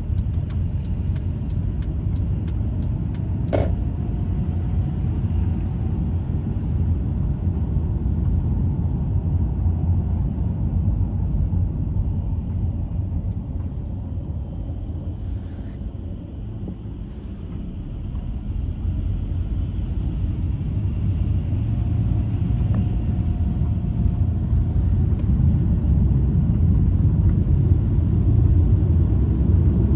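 Car cabin rumble of road and tyre noise on a wet road while driving, easing off about halfway through as the car slows, then building again as it picks up speed. A single sharp click a few seconds in.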